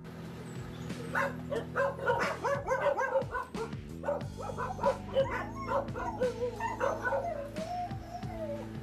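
Several dogs calling in a rapid string of short, high cries and barks, over steady background music.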